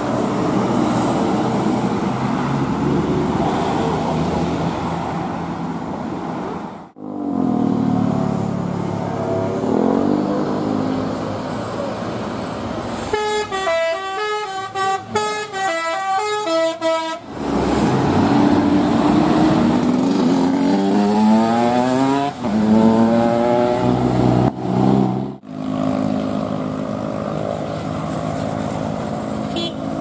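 Large diesel tour buses running past on a bend, one sounding a multi-tone telolet horn that plays a quick stepped tune about halfway through. Other stretches hold rising and falling pitched tones over the engine noise, with two abrupt cuts between passes.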